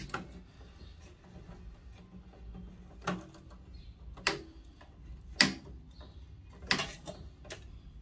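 Sharp snaps and clicks as copper wiring is cut and pulled out of a gutted microwave, about five of them spaced roughly a second apart in the second half.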